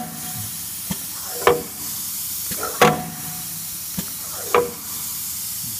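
Keys being pressed on a CNC router's handheld DSP controller: a few short clicks and blips about a second apart over a steady hiss.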